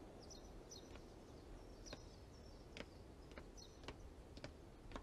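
Near silence: faint outdoor ambience with sparse, short high bird chirps and a few soft ticks.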